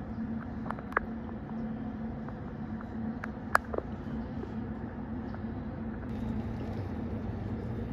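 A steady engine-like hum with a sharp click about a second in and a louder knock about three and a half seconds in.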